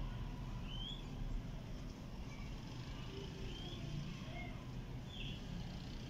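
Birds chirping: a handful of short rising chirps spread across a few seconds, over a steady low rumble.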